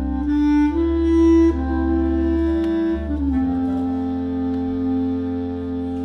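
Bass clarinet quartet (three bass clarinets and a clarinet) playing slow sustained chords in a jazz piece. The chord moves a few times in the first half, then settles into one long held chord.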